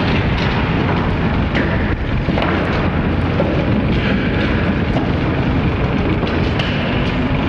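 Loud, steady rumbling noise with scattered faint clicks.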